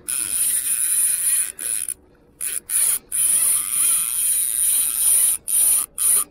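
Fishing reel's drag buzzing as a hooked tarpon pulls line off, in runs that stop and start several times.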